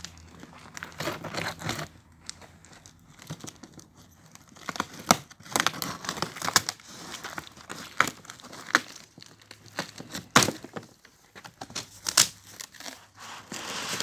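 Cardboard box and its plastic wrapping being unpacked by hand: plastic crinkling and tearing, with irregular sharp rips and snaps, the loudest about five, ten and twelve seconds in.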